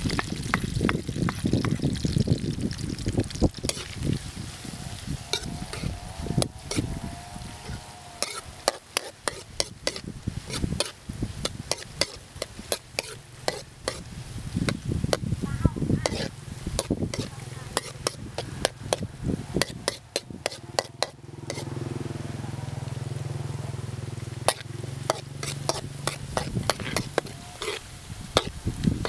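Chopped garlic and chilies sizzling in hot oil in a steel wok, with a metal spatula scraping and clicking against the wok as it stir-fries them. A low steady hum joins for a few seconds past the middle.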